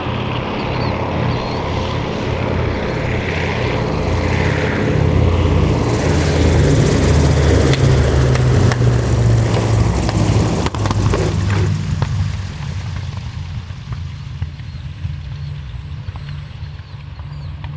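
A WWII fighter's V-12 piston engine and propeller making a pass. It grows louder, peaks about halfway through, then fades away.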